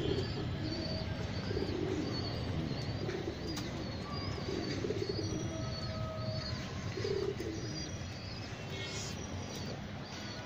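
A pigeon cooing in short, low phrases, about five times, while small birds chirp rapidly and high-pitched throughout, over a steady low rumble.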